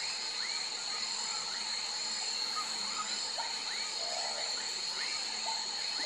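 Swamp frog chorus: many frogs giving short, repeated chirping calls over a steady high-pitched drone.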